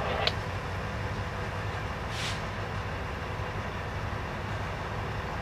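Diesel locomotive idling steadily with a low rumble, and a brief hiss about two seconds in.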